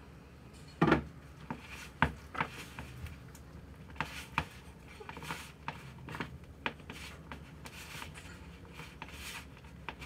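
Hands working bread dough in a plastic bowl on a counter, with irregular small clicks and knocks; the loudest is a knock about a second in.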